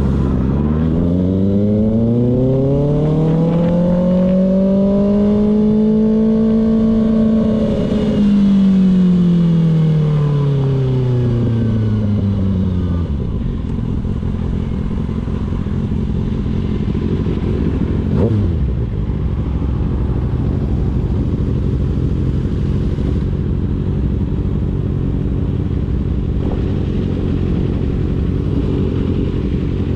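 Kawasaki ZX-6R's inline-four engine pulling up smoothly through the revs for several seconds, then the revs dropping steadily back. It settles into steady riding noise, with a quick falling whoosh about 18 seconds in.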